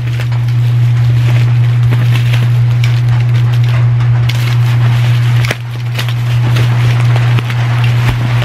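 Bubble-wrap packaging crinkling and crackling as it is cut open with a box cutter and pulled apart by hand, over a loud steady low hum.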